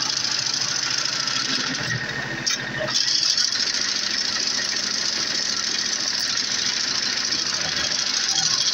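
A small tractor's engine running with the rapid, steady clatter of a three-point-hitch sickle bar mower's reciprocating knife cutting grass. It comes in abruptly and grows a little louder about three seconds in.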